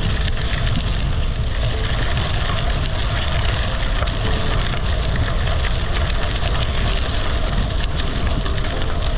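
35 mm gravel tyres of a bicycle rolling and crunching over a sandy gravel track, under steady wind rush on the microphone, with a deep rumble and scattered small ticks of stones.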